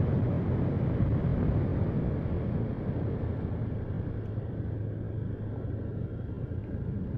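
Yamaha NMAX scooter's single-cylinder engine running steadily while riding, mixed with wind and road rumble: a low, even hum that eases off a little.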